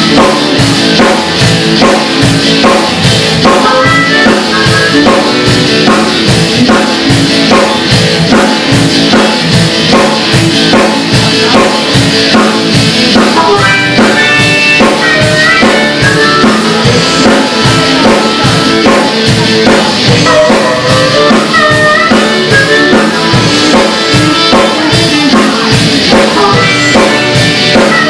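Live blues-rock band playing: a harmonica solo over strummed acoustic guitar and a drum kit keeping a steady beat.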